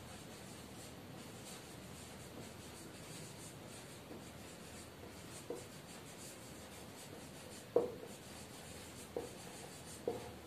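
Whiteboard marker writing across a whiteboard, a faint scratchy rubbing as a line of words is written, with a few light clicks of the marker tip on the board, the sharpest about three-quarters of the way through.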